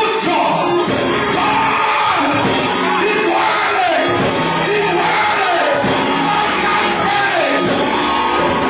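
Loud live music with voices singing and shouting over it, steady throughout.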